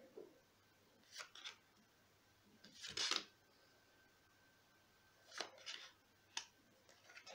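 Tarot cards being dealt onto a wooden tabletop: several short papery slides and taps as each card is laid down, the loudest about three seconds in.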